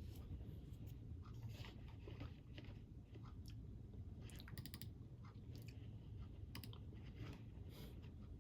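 Crunchy snack being chewed: irregular crunches and clicks, with a quick run of clicks about four and a half seconds in, over a steady low rumble.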